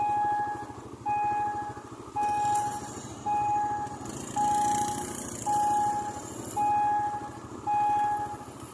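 Railway level-crossing warning signal sounding a steady electronic beep about once a second, each beep about half a second long. A motor vehicle passes in the middle.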